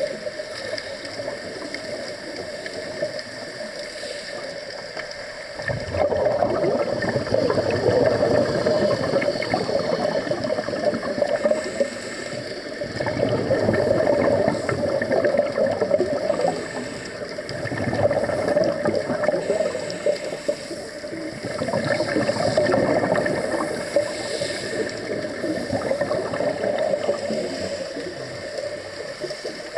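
Scuba divers' exhaled bubbles from their regulators, heard underwater: long bubbling bursts every few seconds, starting about six seconds in, over a quieter steady underwater hiss.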